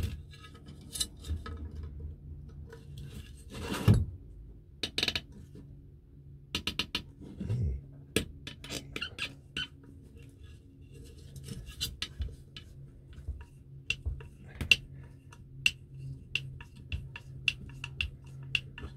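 Small screwdriver scraping and clicking against the metal back plate of a vintage Salter milk scale as a screw is worked out of the adjuster, with light metallic clinks and a few louder knocks. A low steady hum runs underneath.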